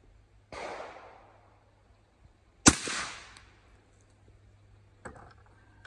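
A 6.5 Creedmoor AR-style rifle fires one loud, sharp shot about halfway through, with a short decaying tail. A fainter shot-like report comes about half a second in, and a few light clicks follow near the end.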